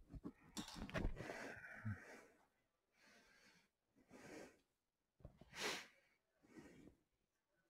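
Faint breathing: a handful of short, separate breaths and sniffs near the microphone, the sharpest one about five and a half seconds in.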